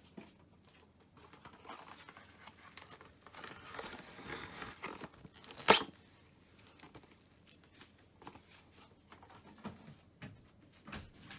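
Rustling and crinkling noises, like something being handled close to the microphone, with one sharp loud click about halfway through and a few small clicks after it.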